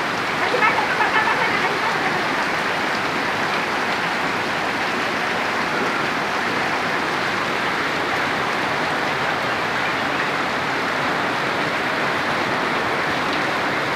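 Heavy rain pouring down, a dense steady hiss with no letup.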